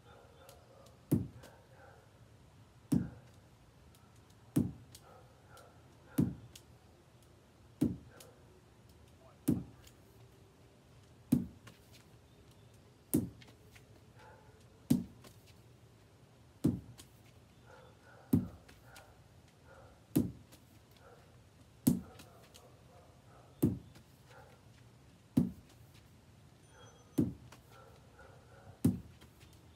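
Lacrosse ball striking a wall in a steady wall-ball drill, one sharp knock about every second and three-quarters.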